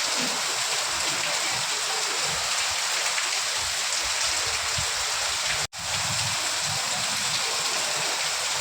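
Steady rain falling, an even dense hiss of drops, which cuts out for an instant a little past halfway through.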